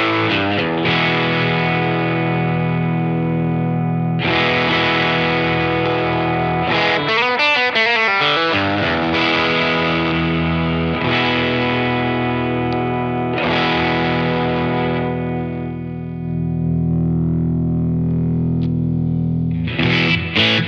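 Overdriven Telecaster-style electric guitar playing chords that ring for a few seconds each, one left to fade out before a fresh burst of strumming near the end. The drive pedal's tone is reshaped by the LPD CLE-304's active EQ, shifting the midrange and cutting some bass for a Tube Screamer-like sound.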